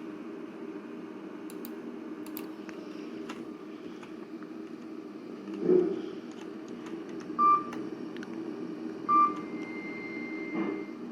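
Lift's electronic beeps: two short beeps under two seconds apart, the second followed by a fainter, longer, higher tone, over a steady low hum. A thump comes before the beeps and another near the end.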